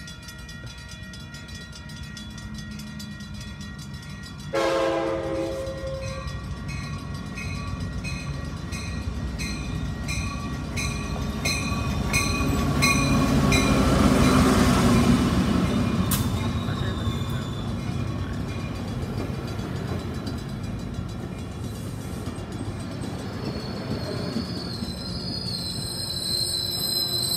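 COASTER diesel commuter train arriving at a platform. Its horn sounds once about four seconds in, over a bell dinging about twice a second. The rumble of the passing cars swells to its loudest about halfway through, and near the end the brakes and wheels start a high squeal as the train slows to stop.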